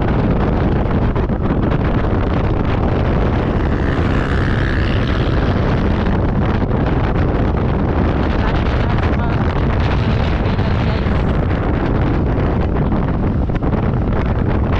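Heavy wind buffeting the microphone: a loud, steady, low rumble with constant rapid flutter and no distinct tones.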